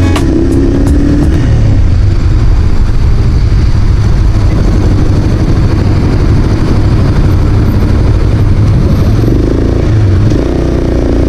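Motorcycle engine running under way in traffic, with heavy wind rush over the microphone. The sound eases briefly near the end as the bike slows.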